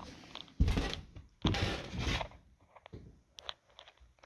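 Handling noise: two rubbing, scraping bursts each under a second long, followed by a few light clicks and knocks.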